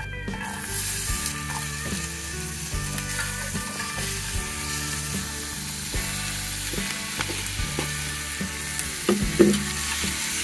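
Squid and sliced onions sizzling as they fry in a stainless steel pan on a portable gas stove. Chopsticks click against the pan while stirring, with the sizzle growing louder about half a second in and a louder knock near the end.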